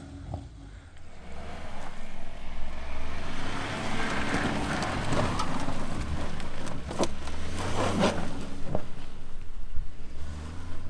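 A 4x4's engine running as it drives off-road, with a rushing mid-range noise that swells in the middle and a few sharp knocks in the second half.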